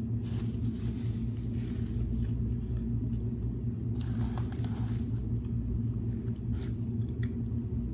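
A steady low rumble, like an idling car or running fan, throughout, with two stretches of rustling noise: from just after the start to about two and a half seconds in, and again around four to five seconds in.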